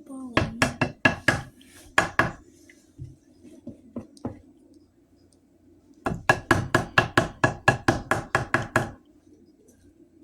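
Knocking on a hard object: a few uneven knocks at the start, then a fast, even run of about five knocks a second for some three seconds. A faint steady hum sits underneath.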